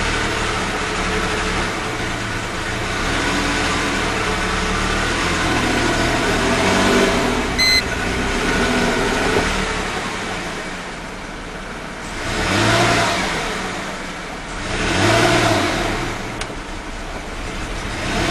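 1998 Mercedes E320's 3.2-litre V6 running under throttle, uneven and bogging, with two swells of revs near the end: the engine misfires on all cylinders and will not rev cleanly past about 2,000–3,000 rpm, which the owner suspects is plugged catalytic converters. A short electronic beep sounds about halfway through.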